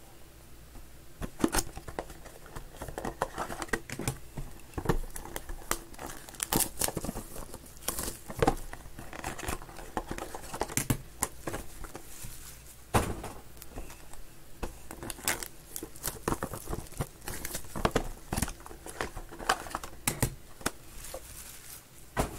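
Hands opening shrink-wrapped trading-card boxes. The plastic wrap crinkles and tears, and cardboard and cards are handled in a quick, irregular run of rustles and clicks.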